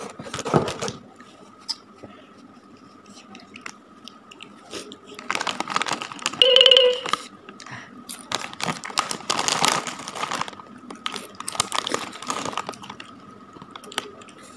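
Crisp potato chips crunched between the teeth in several bouts of chewing, with the crackle of the foil chip bag as a hand goes into it. A short voiced sound from the eater comes about halfway through and is the loudest moment.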